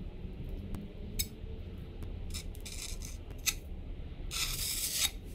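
Steel notched trowel scraping thinset mortar in several short strokes, with a longer scrape near the end.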